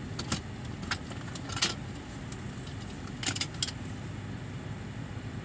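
Steady low rumble of a car idling, heard from inside the cabin, with about five light clicks and jingles spread over the first four seconds as something small and metallic is handled.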